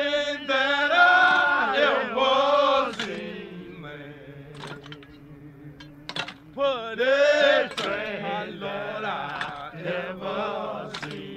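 Soundtrack music: a single voice chanting long, wavering sung phrases, with a quieter pause in the middle and a few sharp percussive clicks.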